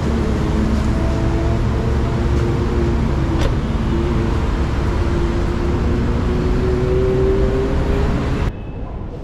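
Steady low rumble of a motor vehicle on the move, with a few drawn-out wavering tones over it and a single click about three and a half seconds in. The noise stops abruptly near the end.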